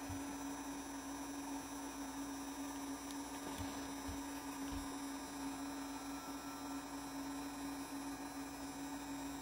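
450 W Gongjue 8018LCD hot air gun running: its fan motor gives a steady hum over a faint hiss of blown air.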